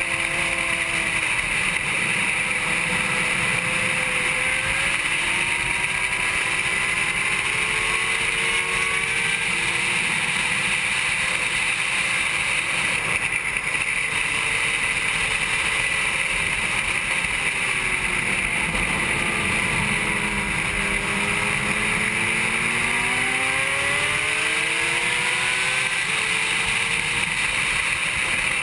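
Onboard sound of a 2007 Honda CBR600RR's inline-four engine at racing speed, its pitch rising and falling with throttle and gear changes. The engine dips about twenty seconds in and then climbs again. A loud, steady rush of wind runs over it throughout.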